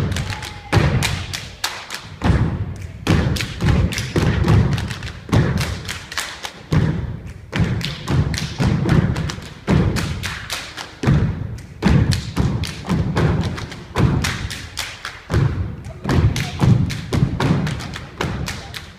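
Performers stomping and clapping in a fast, driving rhythm, a dense run of thuds and sharp slaps, with music underneath.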